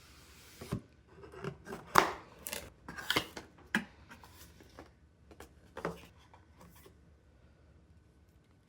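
Cardboard product packaging being handled and opened by hand: a run of rustles, scrapes and sharp taps, loudest about two seconds in, stopping about seven seconds in.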